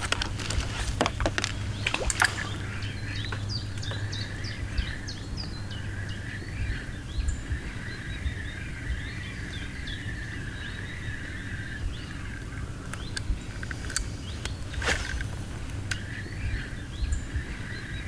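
Small birds singing in the riverside trees, many short chirps overlapping over a steady low rumble. A few sharp knocks come near the start and again about fifteen seconds in.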